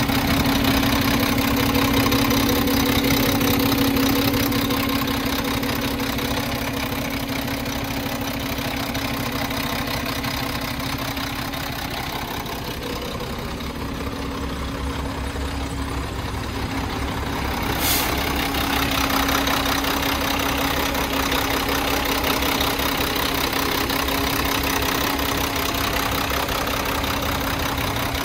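Diesel engine of a 2007 Mack CXN613 truck tractor idling steadily under the open hood, a little fainter for a few seconds in the middle. A single brief sharp click about two-thirds of the way through.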